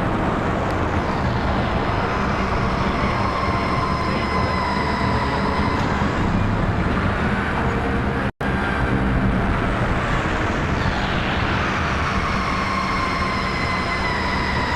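Eurorack modular synthesizer drone and noise: a dense rumbling wash over steady low tones, with high tones that slowly glide downward twice. The sound cuts out for an instant a little past halfway.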